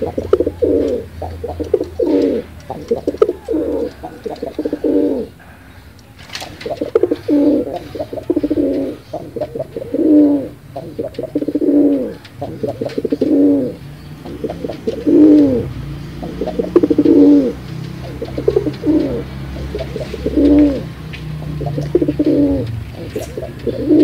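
Domestic pigeons cooing over and over, one coo after another about once a second, with a short pause about five seconds in.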